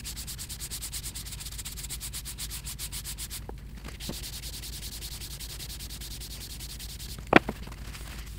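A pad scrubbed hard back and forth along an aluminium lathe bed, first in rapid strokes several a second, then after a short break in smoother passes. A sharp knock comes near the end.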